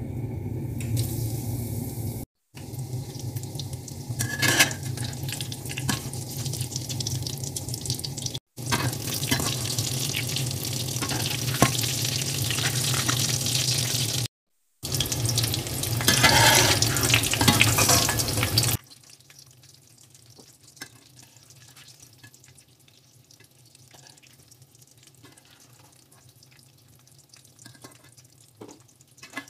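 Breaded chicken donuts deep-frying in hot oil in a steel pot: loud, steady sizzling and bubbling, broken by a few short cuts. It drops to a faint sizzle about two-thirds of the way through.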